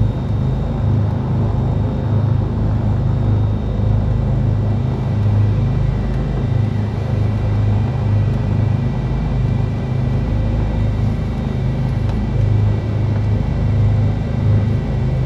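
Twin piston engines of a Cessna 310Q idling while the aircraft holds short of the runway: a steady low drone that swells and fades slowly.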